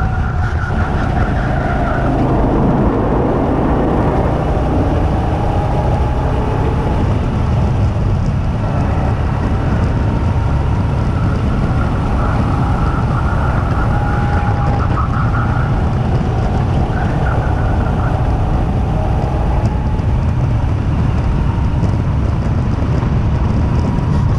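Two-seater go-kart driving at speed on a track: a loud, steady low rumble under a motor whine that rises and falls again and again with speed.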